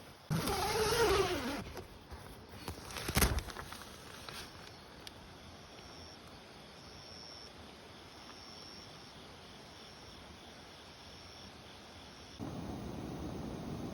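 An insect, cricket-like, chirps high and faintly about once a second. Before it there is a short call whose pitch bends up and down, then a single sharp knock about three seconds in. A steady rush of noise comes in near the end.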